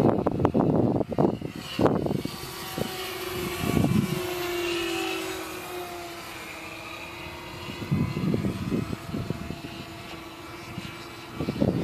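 Engines of radio-controlled model racing airplanes whining steadily overhead, the pitch dipping slightly as one passes near the middle. Gusts of wind buffet the microphone near the start and again toward the end.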